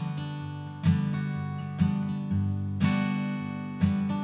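Background music: an acoustic guitar strumming a chord about once a second, each chord left ringing.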